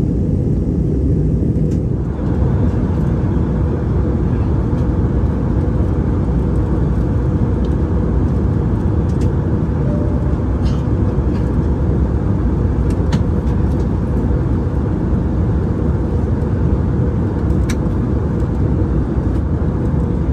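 Steady, loud roar of an Airbus A321neo's engines and airflow heard inside the passenger cabin. About two seconds in, the roar fills out in its higher part and then holds steady.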